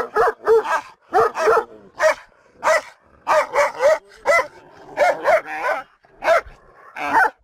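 Kangal shepherd dogs barking, a string of loud, deep barks, often in quick runs of two or three, about two a second.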